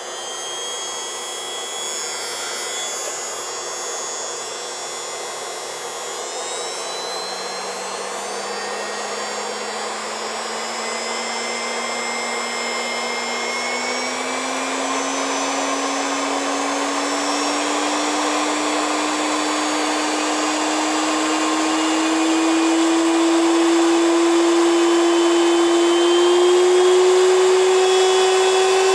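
AIIYME 3200 W high-velocity dog dryer blowing air with a steady rush. Its motor whine rises slowly in pitch and the blast gets louder as the speed is turned up gradually.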